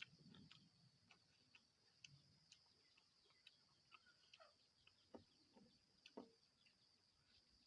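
Faint, scattered mouth clicks and smacks of someone chewing a mouthful of rice and boiled vegetables, over a steady high hiss.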